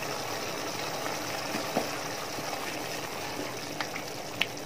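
Thick mango pickle simmering in a metal pot as a steady hiss, stirred with a wooden spoon, with a few light taps of the spoon against the pot near the end.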